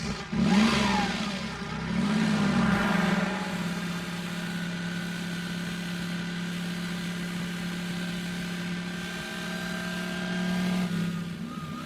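Cartoon engine sound effects for toy buggies racing off: the engine revs, its pitch swooping up and down in the first few seconds, then settles into a steady drone.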